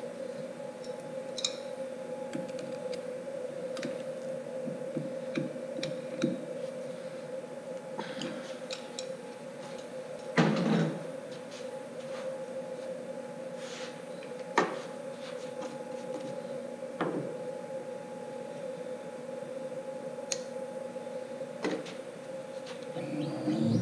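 A steady machine hum with scattered light clicks and knocks from hands working at a CNC router while the aluminium Z-probe block is set on the workpiece after a bit change; the loudest knock comes about ten seconds in. Right at the end, the machine's motors start up with a low rising tone.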